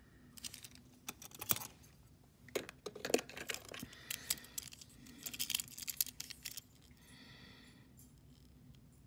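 Small die-cast metal toy trucks clicking and clattering against each other as they are handled, one set down in a pile and another picked up, in a string of sharp knocks over the first six seconds or so. Near the end comes a soft breath through the nose.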